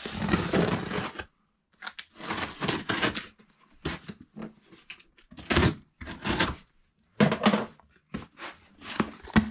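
Plastic strapping and packing tape on a cardboard shipping box being cut with scissors and torn, with the cardboard rustling and scraping as the box is handled, in a run of short bursts.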